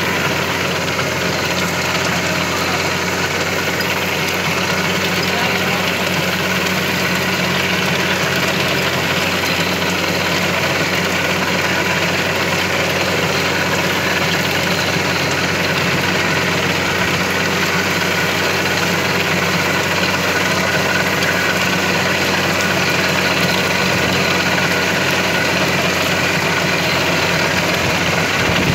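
VST Mitsubishi 27 hp compact tractor's diesel engine running steadily under load while driving a rear rotavator through the soil.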